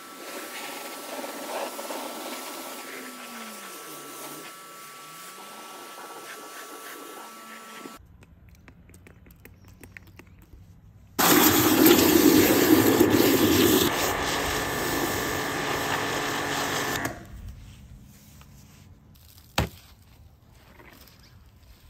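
A pressure washer spraying water onto a car, a steady hiss with a faint whine. After a short quiet gap, a loud rush of water into a plastic wash bucket lasts about six seconds. Then a soapy wash mitt swishes quietly over the paint, with one sharp click near the end.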